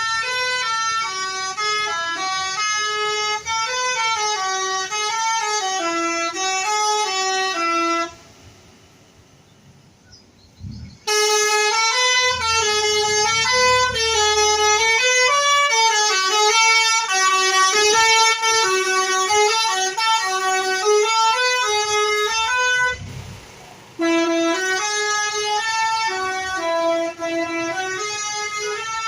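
Basuri telolet bus horn, a multi-tone horn, playing a quick tune of shifting notes. It stops for about three seconds partway through and briefly again near the end.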